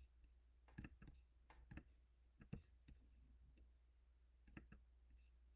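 Near silence: room tone with a steady low hum and a few faint, short clicks.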